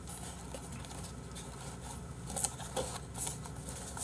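Faint handling noise: a few light clicks and rustles of something small being picked up and moved on a desk, over a steady low room hum.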